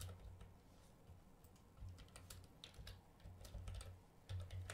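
Computer keyboard keys clicking faintly and irregularly as a word is typed.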